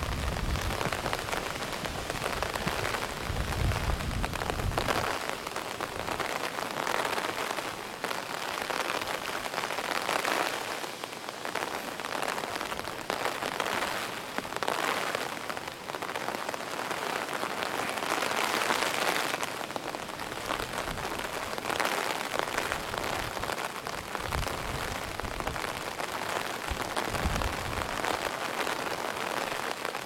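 Heavy typhoon rain falling steadily, swelling and easing in waves every few seconds, with a low rumble in the first few seconds.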